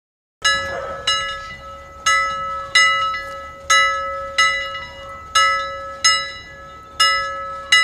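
A bell struck ten times in five quick pairs, each strike ringing and fading, with a steady lower tone held underneath. It is a bell sound effect played with the channel's logo.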